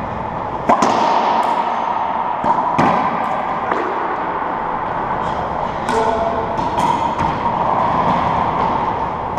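Racquetball rally in an enclosed court: about eight sharp cracks of the ball off racquets and walls, each echoing in the court, over a steady background hum.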